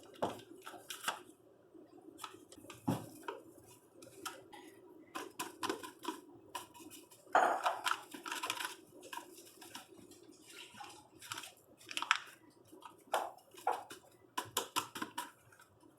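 Paper packets of brown gravy mix being torn open and emptied into a stew pot: rustling, tearing and tapping, with small clinks against the pot. A longer stretch of rustling comes about seven seconds in, and a steady low hum runs underneath.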